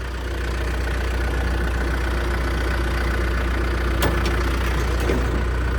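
John Deere 310SJ backhoe's four-cylinder diesel engine idling steadily, a clean-running engine. A few sharp clicks sound over it near the end.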